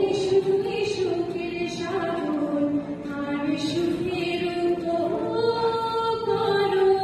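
A woman singing a slow melody in long held notes that step up and down in pitch, with short sung consonants between them.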